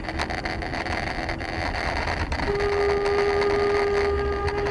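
Low road and engine rumble inside a moving car, then about halfway through a car horn sounds one long steady honk that carries on past the end.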